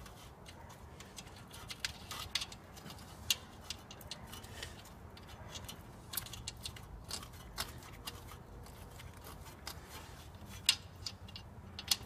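Irregular small metallic clicks and ticks as a nut is turned by hand onto the tie rod end stud, with a few sharper clicks, one about three seconds in and one near the end.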